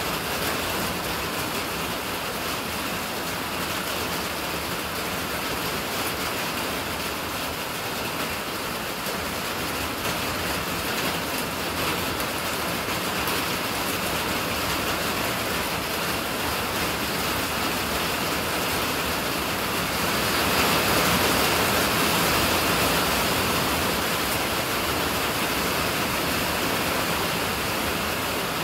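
Steady rain falling, a continuous hiss that grows heavier about twenty seconds in and then eases slightly.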